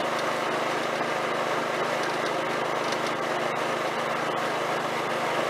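Snapper rear-engine riding mower's engine running steadily as the mower is driven along, a constant drone with no change in speed.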